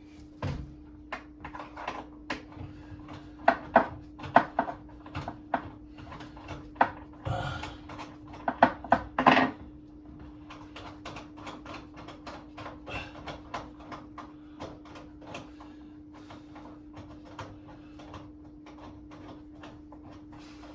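Scattered clicks and knocks of hardware and tools being handled while a mounting bolt is worked in on an over-the-range microwave. They are busiest in the first half and thin out later, over a steady low hum.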